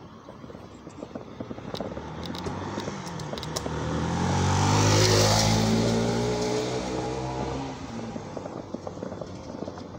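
Small motorcycle riding up and passing close by: its engine grows louder to a peak about five seconds in, drops slightly in pitch as it goes past, then fades away.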